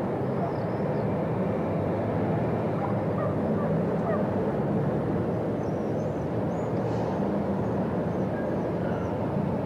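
Steady city ambience: a continuous low rumble of distant traffic, with faint, short, high bird chirps scattered over it.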